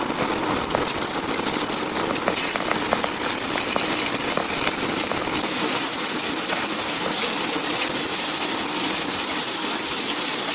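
Coated milkfish frying in hot oil: a steady sizzle with scattered small crackles and pops.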